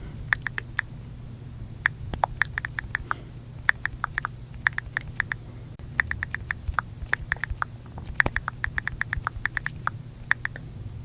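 iPhone on-screen keyboard click sounds from rapid typing: runs of quick, sharp ticks, several a second, broken by short pauses, over a low steady hum.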